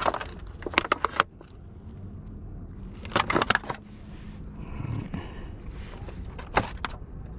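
Thin clear plastic food tray crackling and clicking in three short bursts as gloved hands handle and turn whole white perch in it, over a steady low rumble.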